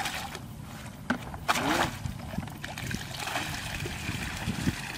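Shallow muddy water splashing and sloshing as a person wades and moves through it, with two sharper splashes between one and two seconds in.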